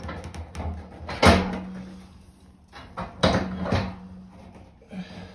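Steel panel radiator knocking against its wall brackets as it is pushed and set into place: several clunks, the loudest about a second in, two of them followed by a brief low ring.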